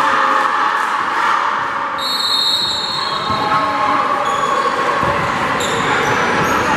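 Steady crowd chatter in a gymnasium, with a basketball bouncing on the hardwood court from about five seconds in and high sneaker squeaks now and then.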